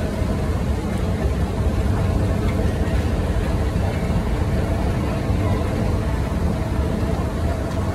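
Steady low rumble of airport terminal background noise with a faint steady hum and a murmur of distant voices.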